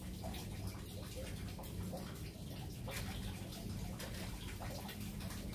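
Faint running water over a steady low hum, with scattered small ticks.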